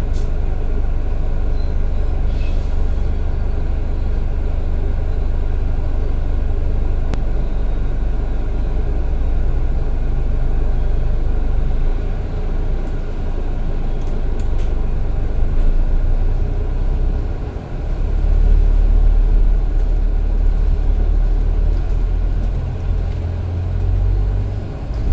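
Bus engine and road rumble heard from inside the moving bus, steady and low, with a brief drop about two-thirds of the way through followed by a heavier rumble.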